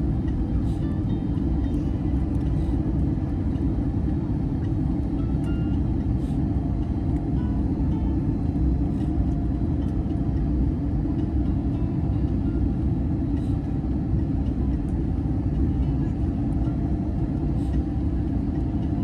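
Steady low rumble of engine and airflow noise inside the cabin of an Airbus A321neo.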